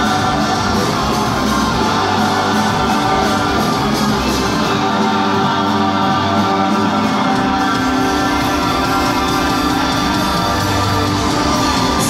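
Live rock band playing with electric guitars, heard loud from within the audience. The deepest bass drops away for a couple of seconds about midway, then returns.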